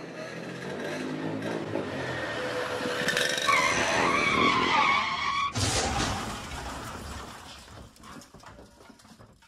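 A vehicle skids with tyres squealing in a wavering screech that builds up, then crashes with a sudden loud impact about five and a half seconds in; clattering follows and fades away.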